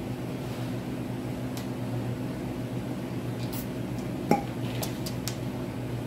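Light clicks and one sharp clink about four seconds in as plastic syringes are handled and one is laid down on the counter, over a steady low hum from a kitchen appliance.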